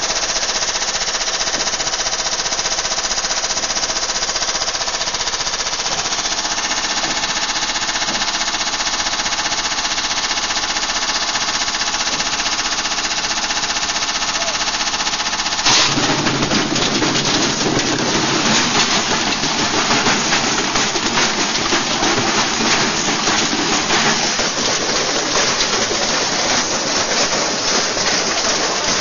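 Washing machine run to destruction, pounding rapidly and shaking as its drum spins with a steady mechanical whine. About 16 seconds in a sudden loud bang, after which the whine gives way to a dense, rapid rattling clatter.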